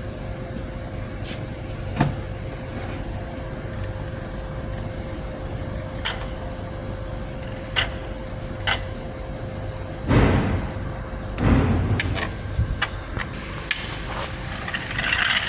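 Steady electric-motor hum with a thin steady tone, with sharp clicks and knocks scattered through it and two louder clattering bursts about two-thirds of the way in. The hum stops shortly before the end, where higher rattling sounds take over.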